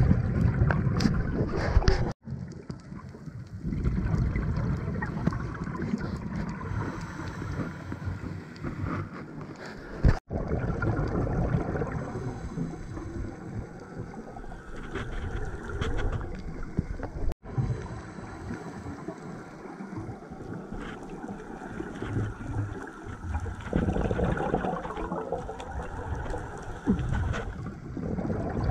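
Underwater noise of a scuba diver breathing through a regulator, with rushing and bubbling that swells and eases irregularly. The sound breaks off for an instant three times.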